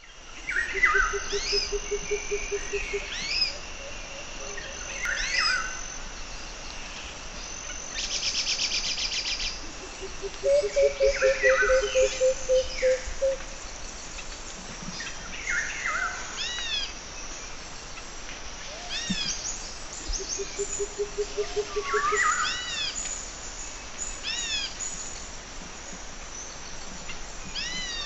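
Wild birds calling outdoors: many short, arching whistled calls and a brief rapid rattle, over a low pulsing hum of about ten pulses a second that recurs several times.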